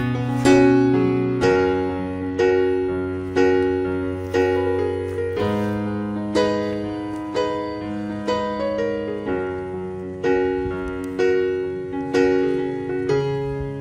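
Background piano music: gentle notes struck about once a second, each fading away, over held low bass notes.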